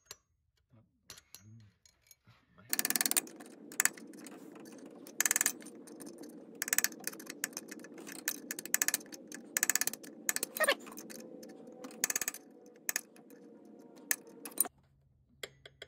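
Hammer striking a flat-nose punch set on the edge of a snapped alternator tensioner bolt, to work the broken bolt round and back it out. It gives short, ringing metallic taps at irregular intervals, about one a second, starting a few seconds in, over a steady low background noise.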